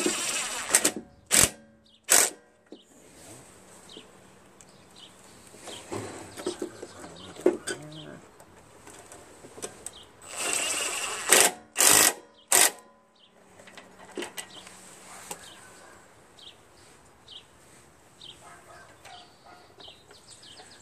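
Cordless driver spinning carburetor mounting bolts into a Briggs & Stratton mower engine in short bursts: a run of about a second right at the start and another about ten seconds in, each followed by two or three quick blips of the trigger.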